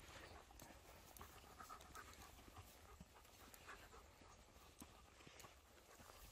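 A dog panting faintly as it walks, with soft footsteps on a sandy path.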